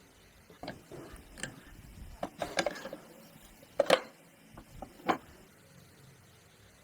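Irregular light knocks and clinks, about eight over five seconds, of hand tools and metal parts being handled. The loudest is a sharp double knock near four seconds in.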